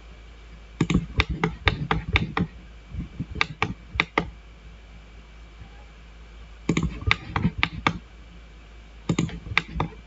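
Computer keyboard and mouse clicking in four quick bursts of several sharp clicks each, with short pauses between.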